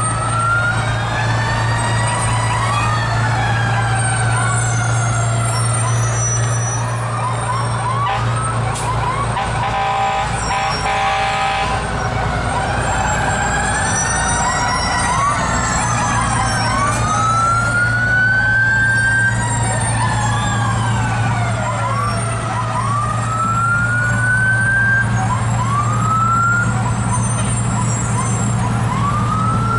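Several fire truck sirens sounding at once, wailing up and down and overlapping, with some giving short rising whoops, over the steady low running of the trucks' engines. A horn blasts for about two seconds around ten seconds in.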